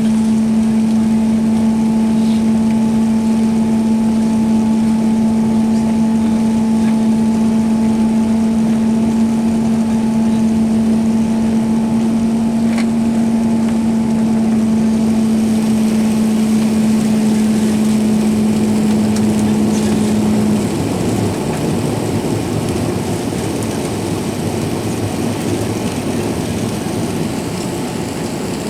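Cabin noise of an Airbus A380 climbing after takeoff: a steady rush of engine and airflow noise with a steady hum under it. The hum cuts off about twenty seconds in, leaving a slightly quieter rush.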